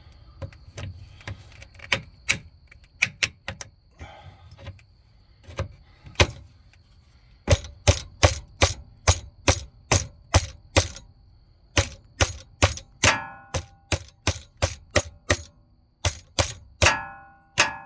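Rapid sharp metal-on-metal knocks from a tool striking at a tight spring clamp on a hose: a few scattered strikes, then a steady run of about three a second. Two of the strikes ring briefly.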